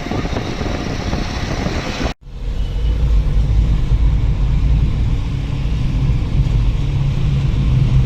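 A steady low engine rumble, like a vehicle running, that starts after a sudden cut about two seconds in; before the cut, a busy outdoor noise.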